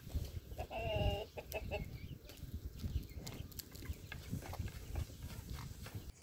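Hens clucking close by, with one short call about a second in, over scattered light wooden knocks of a long thin rolling pin working dough on a wooden board.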